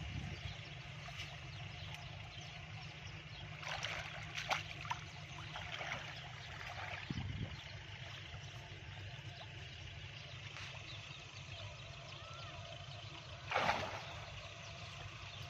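Shallow canal water sloshing and splashing as a man wades through it, groping in the mud by hand for fish. There are a few louder splashes about four seconds in and again near the end, over a steady low rumble.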